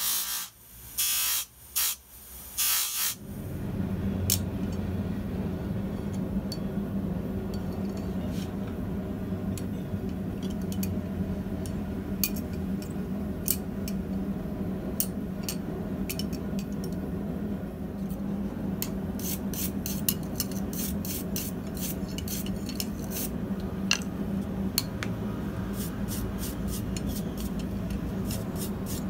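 Steel tongs pressed against a spinning bench grinder wheel in short bursts for the first three seconds. Then a steady low hum with scattered scratches, which turn into brisk brass-brush scrubbing on the steel near the end.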